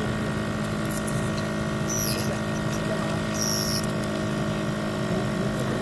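A steady hum made of several held tones, with two brief very high-pitched squeaks, about two and three and a half seconds in.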